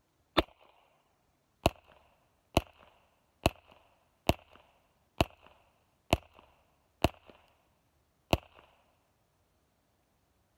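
Nine suppressed shots from a Beretta Model 71 .22 LR pistol fitted with an AWC Archangel II suppressor, fired at a steady pace of roughly one a second. Each is a sharp crack with a brief fainter tail. The firing stops after the ninth shot with the slide locked open on an empty magazine.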